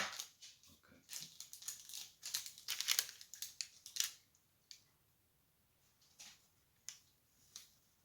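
A knife cuts fudge on parchment paper, with short crinkling and scraping strokes for about three seconds after a sharp click, then a few scattered small clicks.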